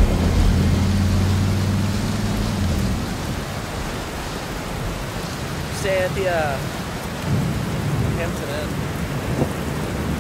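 Steady rain hiss, with a low hum for the first three seconds and a few short sliding chirps about six seconds in.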